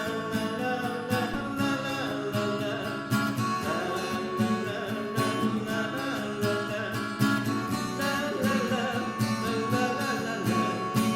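Music: a song with a strummed acoustic guitar keeping a steady rhythm.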